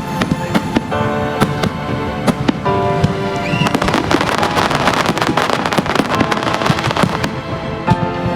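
Fireworks going off: many sharp pops and bangs, with a dense stretch of crackling in the middle, over music.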